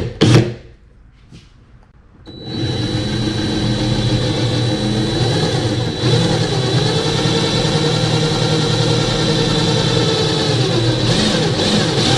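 Electric drill with a 5/32-inch bit starting up about two seconds in and running steadily as it bores a hole in wood, with a constant high whine.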